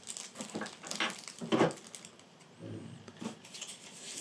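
Several light clicks and rustles of hands handling small plastic camera parts, GoPro batteries and accessories, at a zippered carry case.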